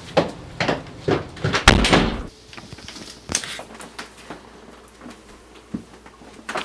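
A quick run of knocks and clunks for the first two seconds or so, then a few scattered single taps.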